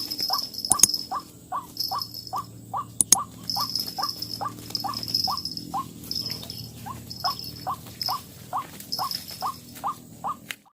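White-breasted waterhen (ruak-ruak) calling: a long series of short, clipped notes, about three a second, each dropping slightly in pitch. The calls cut off suddenly near the end.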